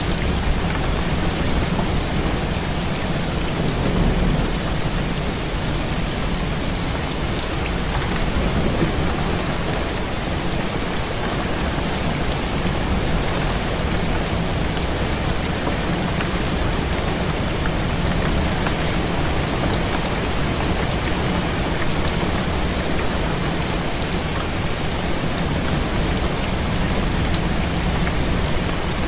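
Heavy rain falling steadily on a window, an even hiss with a deep low rumble underneath that holds at the same level throughout.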